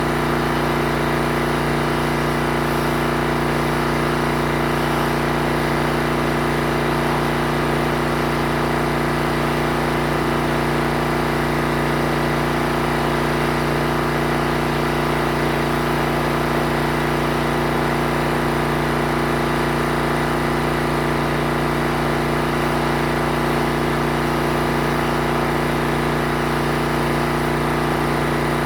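Pressure washer's engine running steadily at a constant pitch, with no change in speed.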